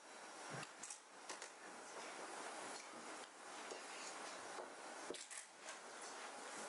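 Faint, steady room hiss with a few small clicks and rustles of handling as a cloth is wiped over skin, about a second in and again past the five-second mark.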